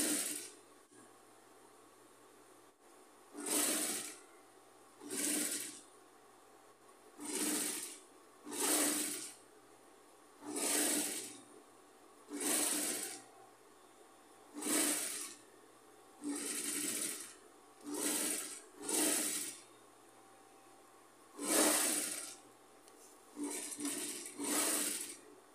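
Industrial straight-stitch sewing machine stitching fabric in about fifteen short bursts, each under a second, with brief pauses between as the fabric is repositioned.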